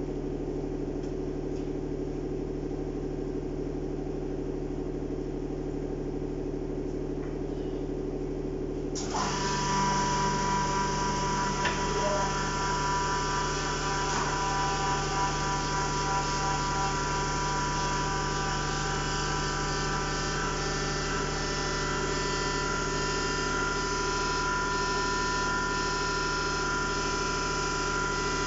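A 120-ton hydraulic press's power unit running with a steady low hum. About nine seconds in, a higher whine with several steady tones sets in and holds: the pump working under load as the ram is driven down.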